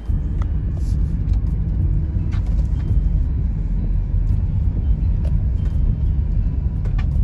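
Van driving along a country road, heard from inside the cabin: a steady low engine and road rumble, with a few faint clicks.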